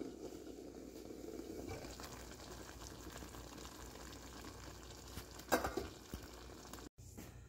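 Cassava curry in coconut milk bubbling at a simmer in a pot: a soft, steady crackle of bursting bubbles. There is a brief knock about five and a half seconds in, and the sound cuts off abruptly shortly before the end.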